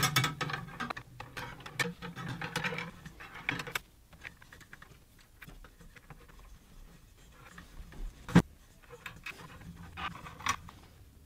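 Steel Acme lead screw rattling and clicking as it is threaded through the CNC's nut blocks and gantry end plate, a dense run of metallic clicks for the first few seconds. Then scattered light clicks, with one sharp knock about eight seconds in and a few more clicks near the end.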